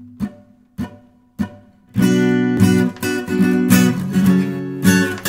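Acoustic guitar opening a song: three single strummed chords each left to ring and fade, then from about two seconds in, continuous, louder rhythmic strumming.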